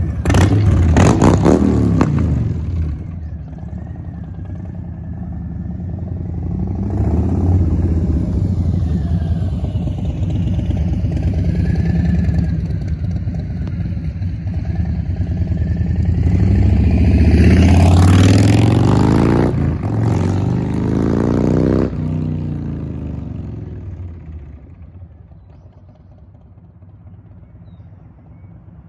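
Harley-Davidson Softail Street Bob/Standard's V-twin engine revving as the motorcycle pulls away, then fading. It swells again past the middle with rising revs as the bike accelerates, then dies away near the end.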